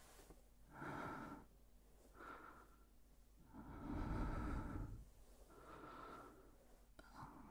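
A man's close-miked breathing: slow, audible breaths in and out, about five in all, the longest and loudest one about four seconds in.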